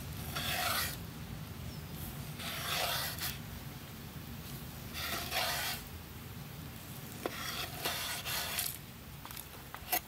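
Chef's knife slicing raw chicken breast into strips on a wooden cutting board: four slow drawn strokes, each a short rasping scrape of the blade through the meat and across the wood, with a few light knocks of the blade on the board in the second half.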